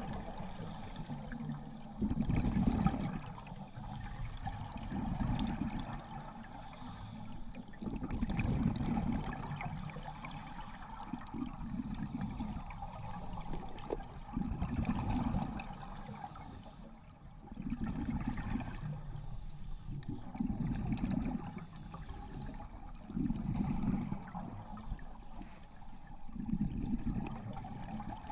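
Scuba diver breathing underwater through a regulator: exhaled bubbles gurgle and rush out in regular surges every two to three seconds, heard through the camera's waterproof housing.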